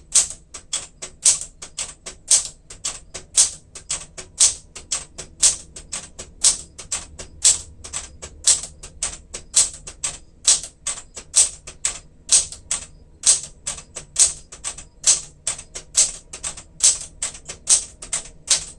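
1967 Smith-Corona Super Sterling manual typewriter typing symbol characters one after another: a steady, even run of sharp typebar strikes on the platen, roughly three a second.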